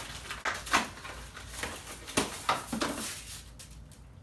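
Gaming chair parts and packaging being rummaged through and handled: a run of rustles and light knocks that dies down after about three seconds.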